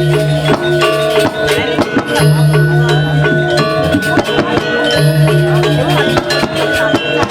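Balinese gamelan music: bronze metallophones playing interlocking pitched notes over sharp drum and cymbal strokes, with a deep low gong-like note sounding about every two and a half seconds.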